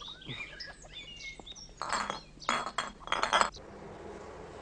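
A few faint bird chirps, then glassy clinking of small hard objects being handled, many quick strokes in clusters lasting about a second and a half.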